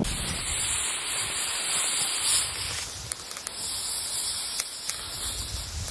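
A steady hissing noise, stronger for the first three seconds or so and then softer.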